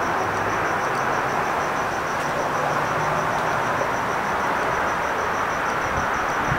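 A cricket chirping steadily, about four to five chirps a second, over a constant rushing background noise.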